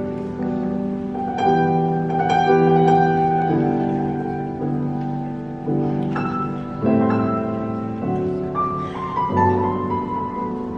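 Grand piano played solo in a slow improvisation: full chords struck every second or two and left to ring.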